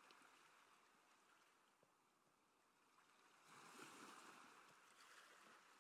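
Faint rush of sea water along the hulls of a Wharram Tiki wooden catamaran under sail, mixed with wind noise. It swells briefly about three and a half seconds in.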